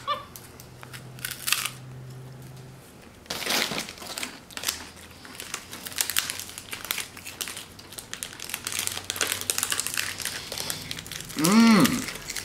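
Crunching and crinkling as crunchy rice rollers are bitten and chewed and their plastic wrapper is handled, a steady run of small crackles. A brief voice that rises and falls in pitch near the end.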